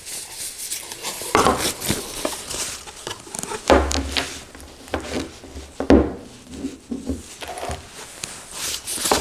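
Crinkling and rustling of the white wrapping around a bird box camera as it is unwrapped, with several sharp knocks and clatters as the camera and its cable are set down on a wooden table.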